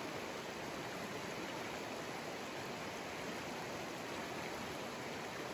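Steady, even rushing noise with no distinct events standing out.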